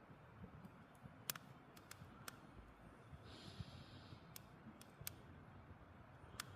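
Wood campfire crackling: sharp, irregular pops of burning logs over a low steady rumble of the flames, with a brief hiss about three seconds in.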